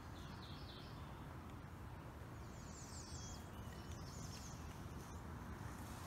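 Songbirds chirping in short, quick series of high notes, three times, over a steady low outdoor rumble.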